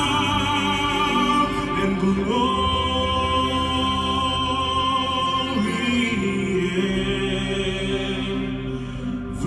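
Male vocalist singing long held notes with vibrato, stepping up in pitch about two seconds in, over a live band's accompaniment including acoustic guitar and keyboard.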